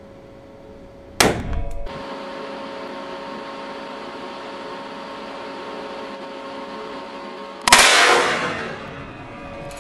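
Two shots from a Smith & Wesson Model 500 revolver in .500 S&W Magnum with a compensated barrel, about six and a half seconds apart. Each is a single sharp crack followed by echo in the range's room, the second ringing out longer.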